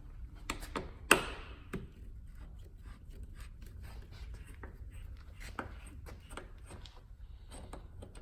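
Scattered light clicks and knocks of tools and plastic parts being handled on a snowmobile, the sharpest knock about a second in.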